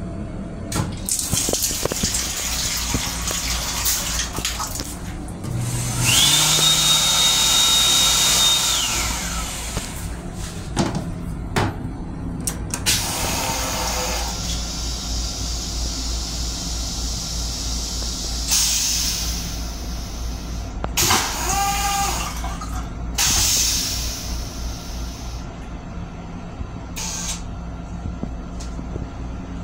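M7 railcar toilet flushing: water rushing into the stainless bowl along with a motor, in several separate bursts, over the steady low rumble of the train.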